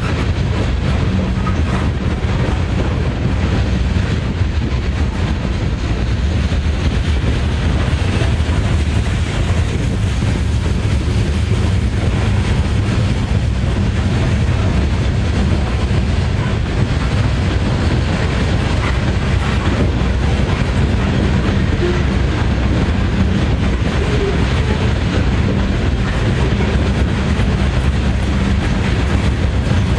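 Loaded coal hopper cars of a long freight train rolling past: a steady low rumble of steel wheels on the rails that holds even throughout.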